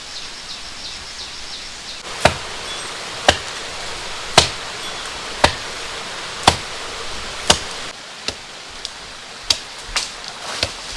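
Chopping with a blade: six strong, evenly spaced strokes about a second apart, then several lighter, quicker ones. Steady rain-like noise runs underneath.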